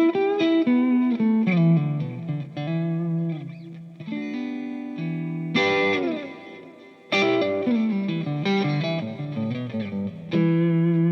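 Electric guitar played through a Kemper Kabinet cabinet, with the Kemper set to a Celestion Creamback speaker imprint. Phrases of chords and single notes ring out, with new phrases struck about five and a half, seven and ten seconds in.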